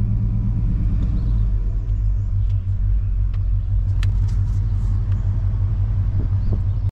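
Chevy Suburban driving slowly, a steady low engine and road rumble, with a few faint clicks around the middle.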